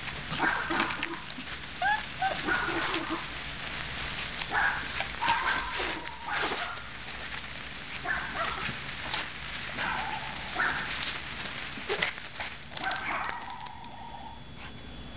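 Puppy barking and yipping in short, scattered bursts while playing in water, with splashing throughout.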